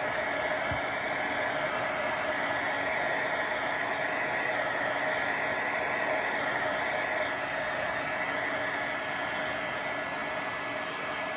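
Craft heat tool (embossing heat gun) running steadily, blowing hot air to dry and set spray ink on watercolour paper: an even whirring hiss with a faint whine.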